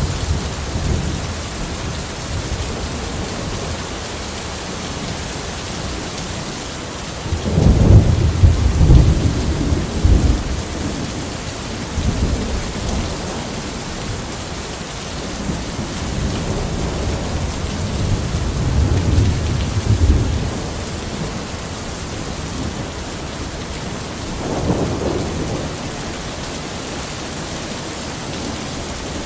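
Steady rain falling in a forest, with rolling thunder. The loudest rumble comes about seven seconds in and lasts about three seconds, a longer one builds from about fifteen to twenty seconds in, and a shorter one comes near twenty-five seconds in.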